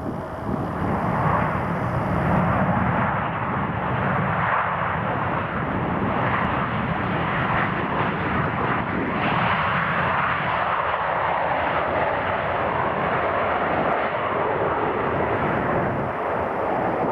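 Jet airliner landing, its engines a loud, steady rushing noise.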